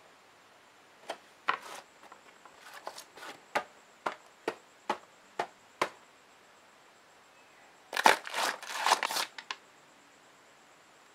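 Small cardboard model-kit box and paper leaflet being handled: a run of sharp clicks and taps on the card, about two a second, then about eight seconds in a louder burst of paper and cardboard rustling and crinkling.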